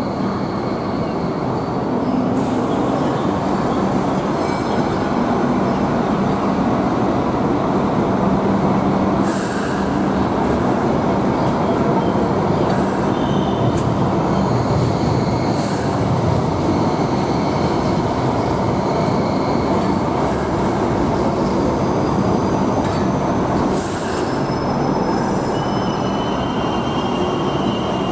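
Hong Kong MTR Light Rail car rolling past on curved track: a steady rumble of wheels and running gear with wheel squeal on the curve. Three brief high hisses come about a third of the way in, about halfway, and near the end, and a thin high squeal starts shortly before the end.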